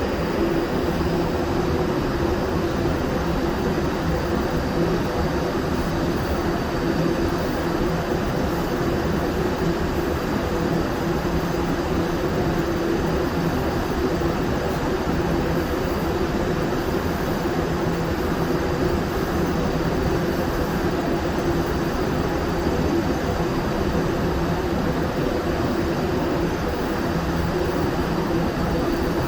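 Steady machine drone with a low, even hum from powder-coating equipment running while parts are sprayed.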